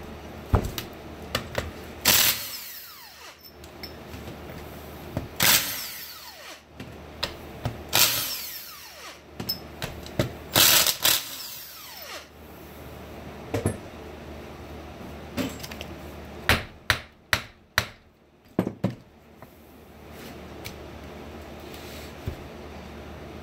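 Cordless drill running in several short bursts, about every three seconds, to take out the back-cover bolts of a John Deere piston pump, followed by a quick run of sharp metallic clicks and knocks as the parts are handled.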